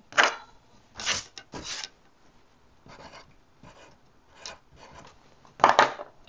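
Handling noise on a tabletop: a few short scrapes and knocks as a ruler and a spoked bicycle rim are moved, with a pencil scratching on paper in the quieter middle stretch.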